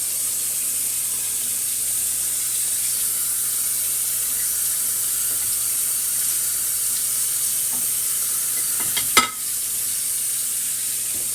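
Steak and vegetables sizzling steadily in a hot pan on the stove, with one sharp clink of utensil or dish about nine seconds in.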